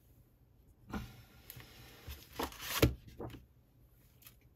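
Paper and craft tools being handled on a desk: rustling from about a second in, with a sharp knock a little before three seconds and a few lighter knocks after it.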